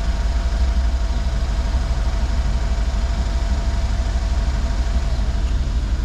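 Mercedes G63's twin-turbo V8 idling steadily: a constant low rumble with a faint steady hum above it.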